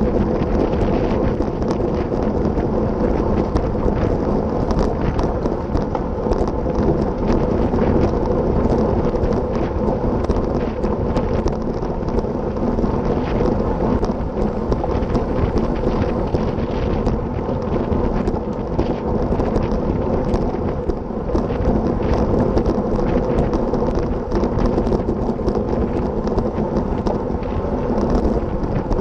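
Wind rushing and buffeting over the microphone of an action camera on a racing bicycle at speed, crackling throughout, over a steady rolling hum.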